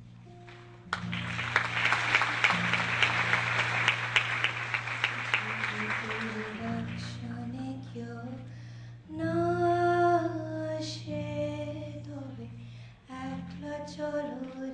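Applause runs for about five seconds over a steady low instrumental drone. About seven seconds in, a group of female students begins singing in unison over the drone.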